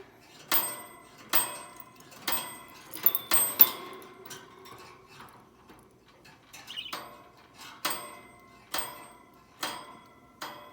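Small metal toy bell struck over and over by a pet bird, each strike a sharp ting that rings on briefly, roughly once a second with a quick run of strikes about three seconds in.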